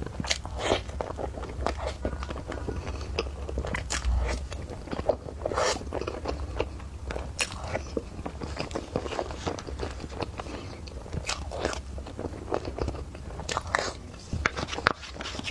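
A person eating close to the microphone: irregular wet biting and chewing sounds, with sharper smacks every second or two.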